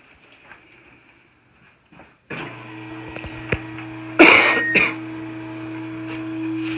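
A person gives a short throat-clearing cough about four seconds in, with a smaller second one just after. Under it a steady low hum starts abruptly a little past two seconds in.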